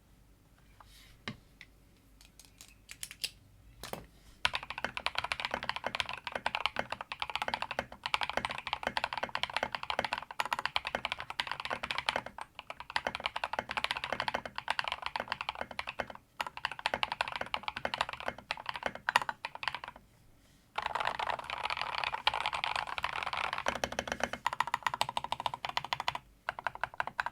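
Mechanical keyboard fitted with Zuoce Bubblegum switches being typed on: a few single key presses, then fast continuous typing broken by several short pauses.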